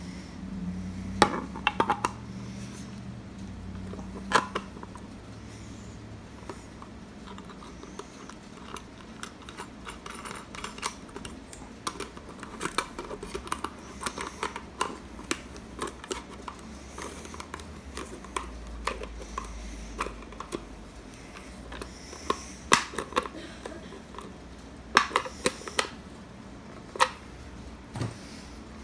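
Scattered small metallic clicks and clinks of a gumball-machine lock and small hand tools being handled during a lock replacement, with a few louder knocks.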